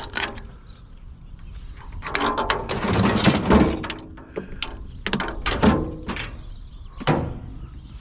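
Clatter and several separate sharp knocks from a piece of curbside scrap being picked up and handled. There is a dense run of clattering a couple of seconds in, then a few single knocks.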